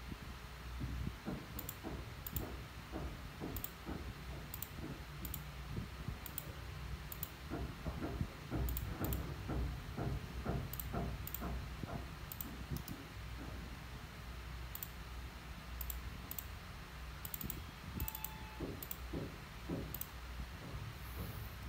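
Irregular runs of small, sharp clicks from xiangqi pieces being handled and tapped against each other and the board.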